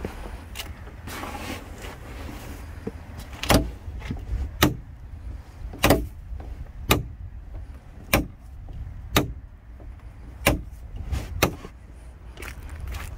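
Slow footsteps on a dry dirt path, about one step a second, each a short sharp crunch, clearest from about three seconds in. Under them runs a low rumble of wind on the microphone.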